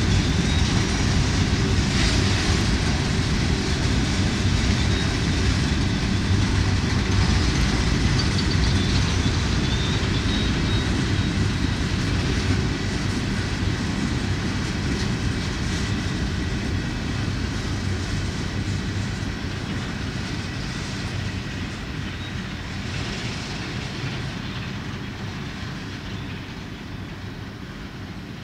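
Empty steel gondola cars of a freight train rolling past on the rails: a steady rumble of wheels on track with a faint high squeal. It fades over the second half as the end of the train goes by.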